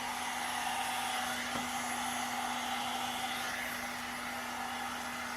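One-step hair dryer and styler (hot-air brush) blowing steadily, a constant rush of air over a steady motor hum, during a styling pass through short bangs.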